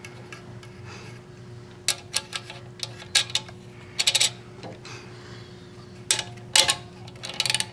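Irregular light metallic clicks and clinks, about ten sharp ones with short pauses between, as a nut is threaded by hand onto a Goulds NPE pump's motor shaft and a socket ratchet is fitted over it.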